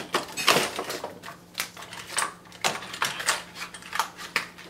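Irregular clicks, taps and light rattles of small plastic camera accessories and their packaging being handled.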